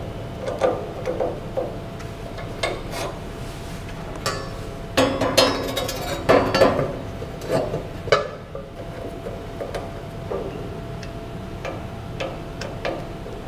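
Irregular metallic clinks and knocks from a screwdriver and loose steel parts against a 4x6 metal-cutting bandsaw as its vertical-cutting table is fitted under the blade, with a louder run of clatter about halfway through.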